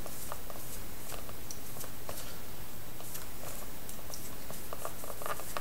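Light rubbing and scattered faint clicks as the rollers of a Polaroid 100 Land camera are wiped with a damp paper towel to dissolve dried developer chemicals, over a steady hiss.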